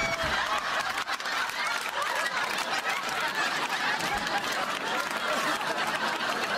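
Studio audience laughing, a crowd of many voices that carries on without a break, with some clapping mixed in.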